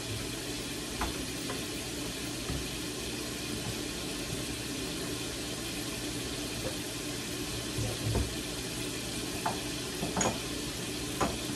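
Homemade french fries frying in a glass pot of oil, a steady sizzle. A few light knocks and clicks of items being moved about in a lower kitchen cabinet sound over it.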